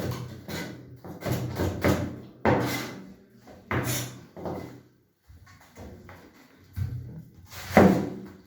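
Knife chopping vegetables on a cutting board, irregular knocks about one every half second, fainter in the middle, with a heavier chop near the end.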